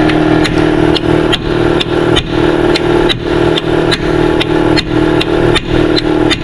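Hammer blows on a cold chisel held against the steel chassis of a roller coaster car: sharp metallic strikes at an even pace, about two a second.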